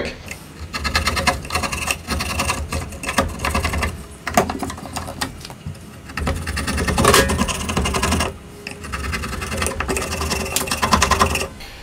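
Hand chisel scraping along the bottom of a table-saw groove in a walnut board, cleaning out the waste: a fast run of short scraping strokes in four spells with brief pauses between them.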